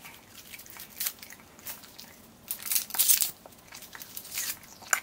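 Paper gum wrapper crinkling and rustling in a few short bursts, the loudest between about two and a half and three seconds in, as a piece of gum is pushed from it into a mouth already full of gum, with some mouth and chewing noises.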